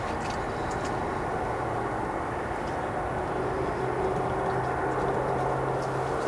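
Steady rumble of a distant passing vehicle, with a low hum that grows stronger about three and a half seconds in.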